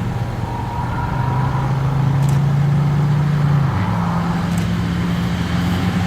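Car engine and road noise while driving: a steady low hum that shifts to a different pitch about two-thirds of the way through.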